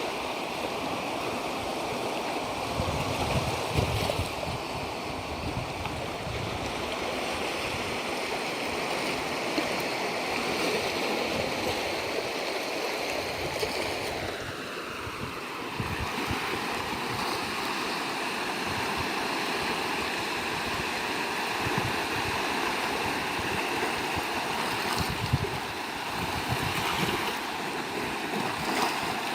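Sea surf washing steadily on the shore, an even rush of water. About halfway through, a faint tone slides down in pitch and then holds steady under the surf.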